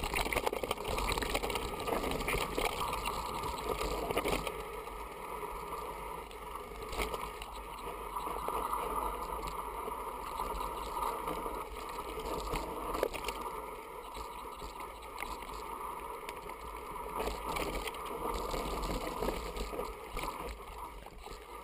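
Mountain bike riding down a dirt forest trail: a steady rush of wind and tyre noise on the bike-mounted camera, with a couple of sharp knocks from bumps in the trail.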